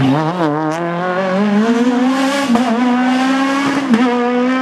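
Rally car engine at high revs, its pitch wavering quickly at first, then climbing and holding at a steady high note.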